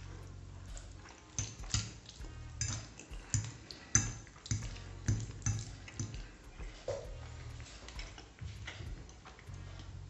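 Metal fork clinking and scraping against a ceramic plate while tortellini in cream sauce are speared, with a string of sharp clinks through the middle. Faint background music underneath.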